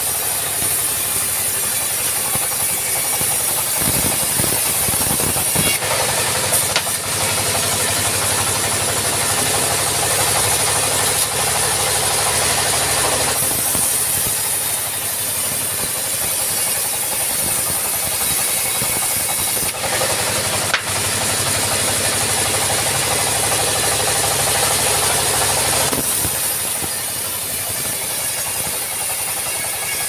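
Engine-driven band sawmill running steadily while its blade saws teak logs into boards. The high hissing cutting noise swells and eases over stretches of several seconds as each pass goes through the wood, above a constant engine hum.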